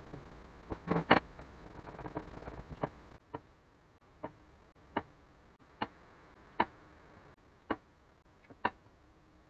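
Sharp wooden clicks and knocks from clamping a glued-up end-grain cutting board in pipe clamps: a few louder knocks about a second in, then single clicks roughly once a second.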